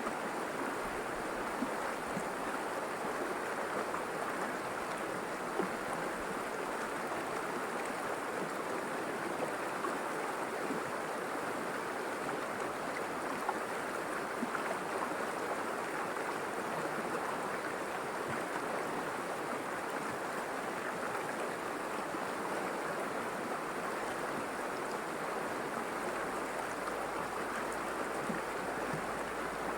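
River water rushing and burbling steadily.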